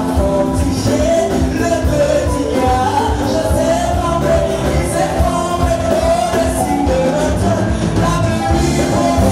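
Gospel praise song: voices singing over a full band.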